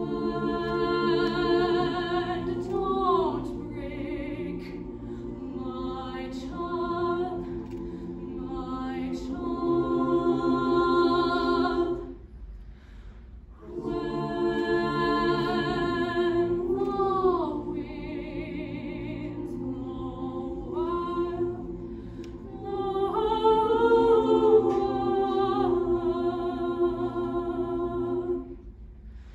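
Large mixed show choir singing held chords in harmony, with a short break between phrases about twelve seconds in.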